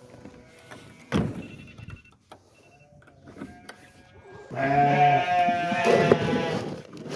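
Sheep bleating: a few faint calls, then one long, loud bleat in the second half. A single knock about a second in.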